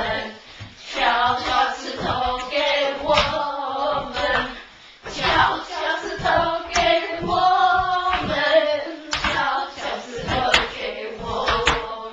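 A group of voices singing a song together, with a few sharp hand claps in the last few seconds.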